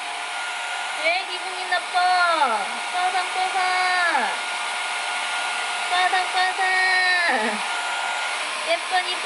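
Hand-held hair dryer blowing steadily on a cat's fur, a loud airy rush with a faint motor whine. The cat gives about four long, drawn-out meows over it, each falling in pitch at the end.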